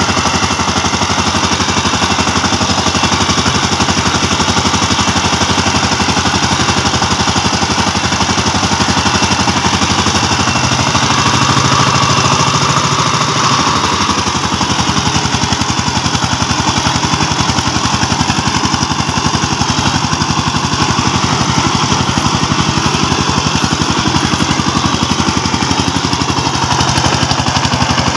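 Two-wheel power tiller's single-cylinder diesel engine running steadily under load with a rapid, even firing beat as it tills a wet rice paddy.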